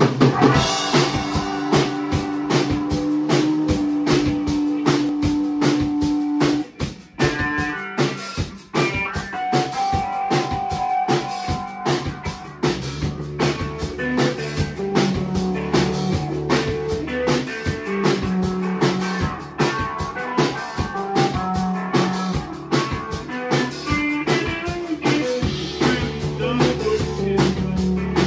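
Live rock band playing an instrumental passage on electric guitars, electric bass and drum kit, with no singing. A sustained guitar note rings over the drums for the first six seconds, the band briefly drops out about seven seconds in, and the low end gets heavier from about twelve seconds on.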